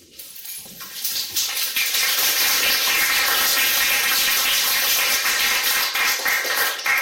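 Audience applauding, the clapping building up about a second in and holding steady, then cut off abruptly.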